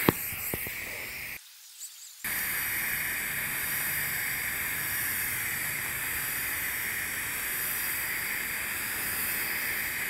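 TIG welding arc at about 175 amps giving a steady hiss as a hard-facing bead is laid down by walking the cup. The hiss drops away briefly about a second and a half in, then comes back and holds steady.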